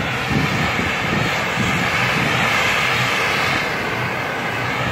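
Mitsubishi L200 pickup's engine running steadily under heavy load as the truck pushes through deep icy snow, its differential dragging through the snow.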